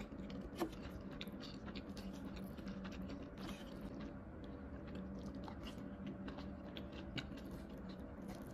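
Close-up chewing and small wet mouth clicks of someone eating curry and rice, while a wooden spoon scoops curry from the plate. One sharp click stands out about half a second in.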